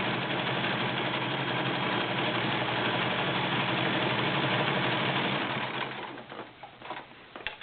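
Kenmore 1703 all-metal sewing machine running steadily as it stitches a satin stitch, stopping about six seconds in, followed by a few light clicks.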